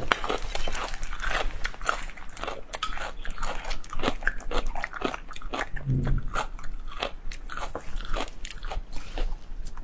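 Crunchy food being bitten and chewed, a quick irregular run of crisp crunches, with one brief low sound about six seconds in.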